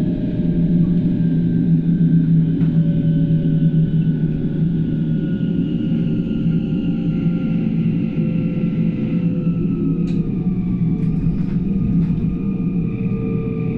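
Inside a moving ET 474 S-Bahn electric train: a steady low rumble of the running gear, with faint whining tones that fall slowly in pitch, and a few light clicks about ten seconds in.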